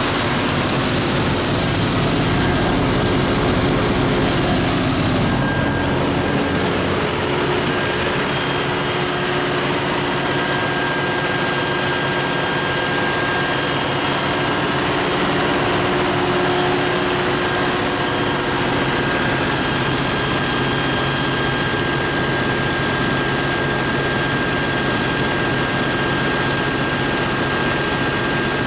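MTU 12V4000 V12 diesel engine of a 1650 kW generator set running steadily at constant speed, with a steady high whine over the engine noise, heard inside the set's enclosed container.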